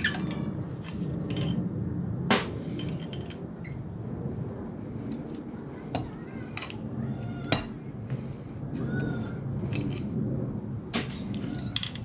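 Scattered metal clinks and taps as screws and an aluminium cover plate are handled while a radio unit's housing is being taken apart, over a steady low hum.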